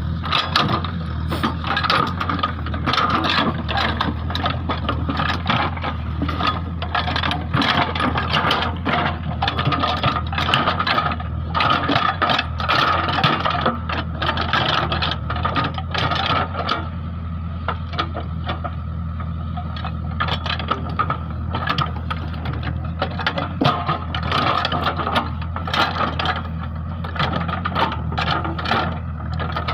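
JCB backhoe loader's diesel engine running steadily while the machine works soil and stones, with dense rattling and scraping over the engine note. The rattles thin out for a few seconds past the middle.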